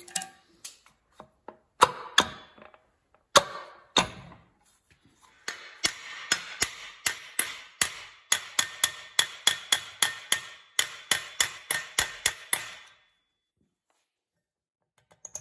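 Hammer striking a punch against the shaft of a mini bike torque converter to drive it out of the housing. A few separate blows come first, then a fast run of ringing metal taps, about three to four a second, for some seven seconds, stopping a couple of seconds before the end.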